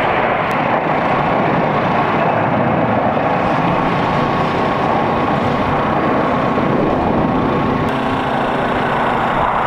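Jet engines of a formation of jet aircraft flying past overhead: a loud, steady roar with a faint high whine running through it.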